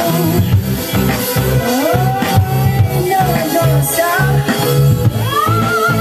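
Song with a sung melody over a heavy, steady bass beat, played loud through a stack of Joson Pro Audio Airbus 12 and Airbus 15 two-way speaker cabinets in a sound test.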